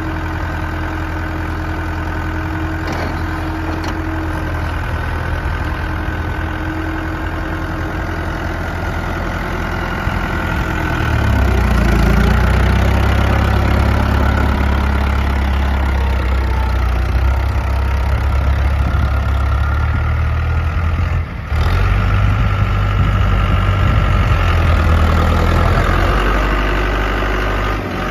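Case International tractor's diesel engine running steadily at idle, then revved up about eleven seconds in and held at the higher speed, with a brief drop near the end before it steadies again.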